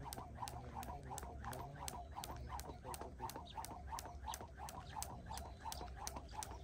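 Skipping rope hitting the ground in a steady, fast rhythm, about three strokes a second, during continuous jump-rope skipping.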